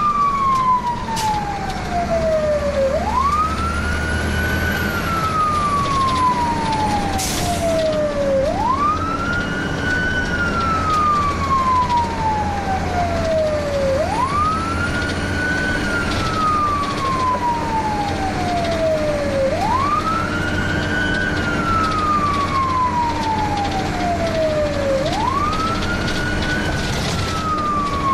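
Fire engine siren on wail, heard from inside the cab. Each cycle climbs quickly and then falls slowly, repeating about every five and a half seconds, over the steady drone of the truck's engine and road noise.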